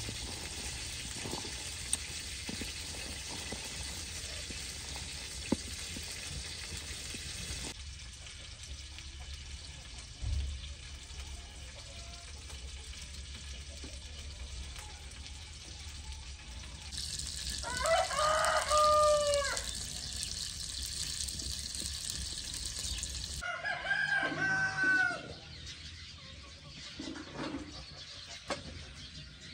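A rooster crowing twice, each crow about two seconds long, the first about halfway through and the second a few seconds later. Under it runs a steady hiss, with a couple of sharp clicks in the first few seconds.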